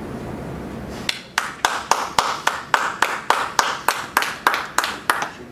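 A single pair of hands clapping at a steady, even pace, about fifteen claps at three to four a second, starting about a second in and stopping just before the end.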